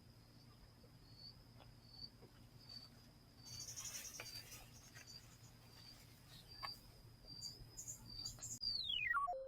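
Faint, steady high-pitched trilling of insects such as crickets, with a few light clicks and a brief hiss a few seconds in. Near the end the tone slides steeply down in pitch, like an edited sound effect leading into music.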